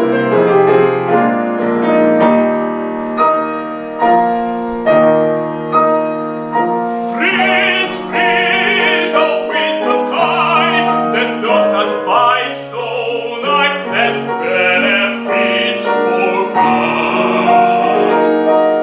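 Art song for tenor and piano: the piano plays an interlude alone, then about seven seconds in a tenor voice with a wide vibrato comes in over the accompaniment.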